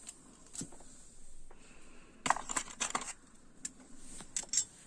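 Small clicks and taps of metal dress and shoe clips being handled, with a quick run of clicks about two seconds in.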